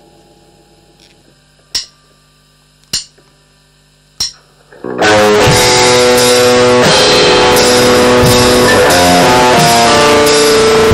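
The last notes of one track die away, three sharp clicks come about a second apart, and then, about five seconds in, a loud improvised metal band demo starts at full volume with electric guitar and drums. The harsh distortion comes from an analogue recording input driven past its limit, not from effects.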